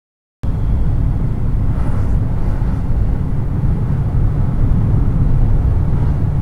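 Steady low rumble of road and wind noise inside a car cruising at about 110 km/h, heard through a dashcam's microphone. It cuts in abruptly about half a second in.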